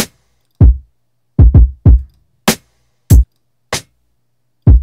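Redrum drum machine in Reason 8 playing a hip-hop drum pattern on its own: deep kick hits with a low decaying boom, mixed with shorter, sharper hits that lack the low end, and silence between the hits.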